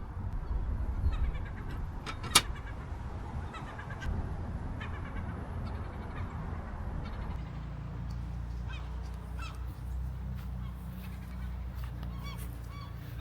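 Birds calling over a steady low rumble, with one sharp click a little over two seconds in.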